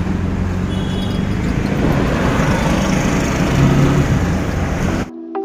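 Ride noise inside a moving auto-rickshaw: a steady engine drone with road and traffic noise. About five seconds in it cuts off suddenly and background music with plucked notes begins.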